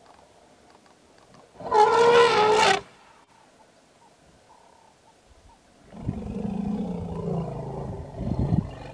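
African elephant calls: one loud, brassy trumpet about a second long, then, a few seconds later, about three seconds of a lower, rough bellowing call.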